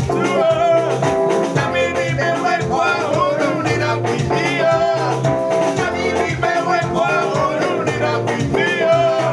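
Upbeat gospel music with a steady dance beat and singing over held bass notes.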